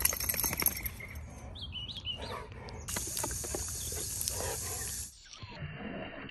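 Garden hose spraying a jet of water, a steady hiss for about two seconds, while a dog snaps and growls at the stream; before that, scuffling clicks and a few short chirps.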